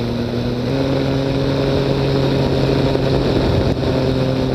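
Weight-shift microlight trike's engine and propeller running steadily in flight, with wind noise. The engine note steps up slightly as the engine speeds up about a second in, then holds.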